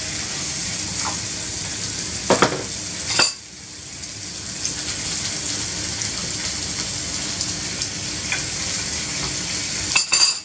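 Pigeon breasts, sliced mushrooms and chopped onion sizzling steadily in hot oil in a frying pan. There are a few sharp knocks about two to three seconds in and again near the end. The sizzle drops off suddenly about three seconds in, then builds back.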